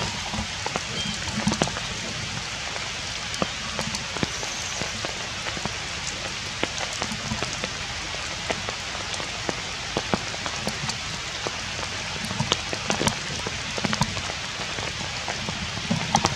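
Steady rain falling on puddles and wet muddy ground, with many scattered sharp taps of single drops.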